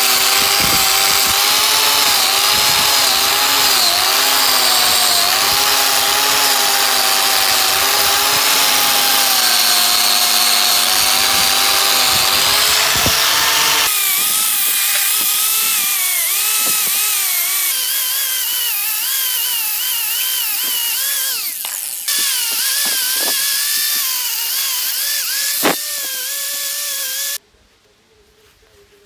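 Angle grinder with a wire wheel brush running against a rusty bench-vise part, stripping off the rust; its motor whine wavers as the wheel is pressed onto the metal. The whine jumps higher about halfway through, dips briefly later on, and cuts off shortly before the end.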